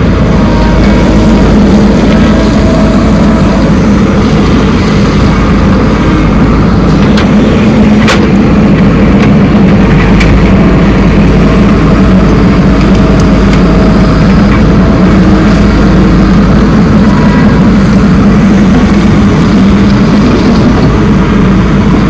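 Heavy diesel earthmoving machinery running steadily, its engine a loud, continuous low rumble, with one brief knock about eight seconds in.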